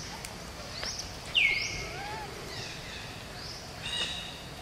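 Birds calling over a steady outdoor background hiss: a series of short whistled notes that sweep upward, and one louder call about a second and a half in that drops in pitch and then holds.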